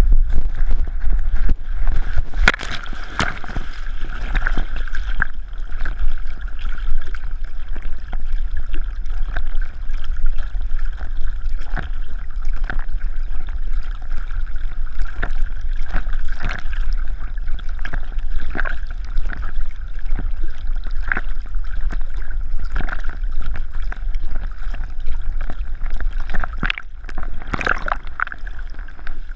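Lake water sloshing and splashing around a swimming dog, heard from a camera strapped to its back, with irregular splashes over a steady low rumble.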